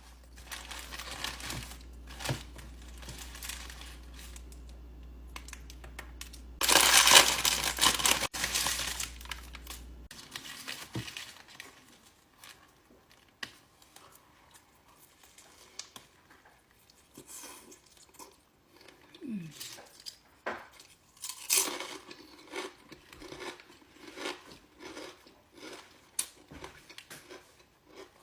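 Paper sandwich wrapper crinkling and tearing as a Subway footlong is unwrapped, loudest in a dense burst about seven seconds in that lasts a few seconds, then quieter scattered rustles and clicks.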